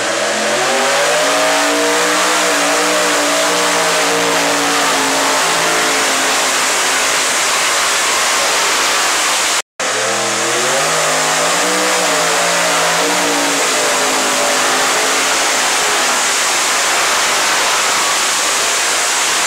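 Unlimited modified pulling tractor's engines running flat out under load during a pull, loud, with a dense noise over the engine note. The pitch climbs over the first second or so and then holds high. The sound cuts out for a moment about halfway through, then comes back with the pitch climbing and holding again.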